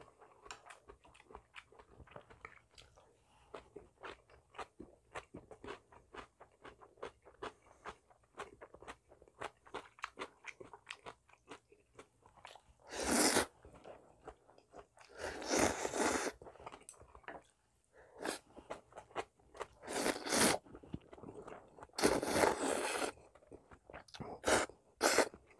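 Close-miked chewing of a mouthful of soft noodles, with small wet mouth clicks, then a series of loud slurps as noodles are sucked up in short pulls over the second half, six in all.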